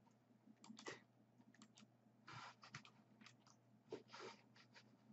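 Near silence with a few faint clicks of a computer mouse.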